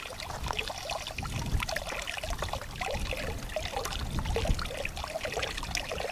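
Small pond waterfall: water trickling and splashing steadily from a stacked-rock spout into the pool, with a low rumble underneath.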